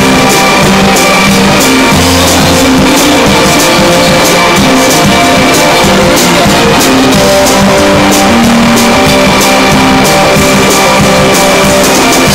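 Small rock band playing loud live: drum kit with regular cymbal strikes under guitar and held keyboard notes.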